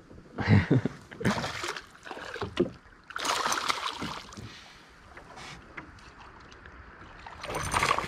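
A hooked bass thrashing and splashing at the water's surface beside a small boat, in several irregular splashes, the loudest about three seconds in.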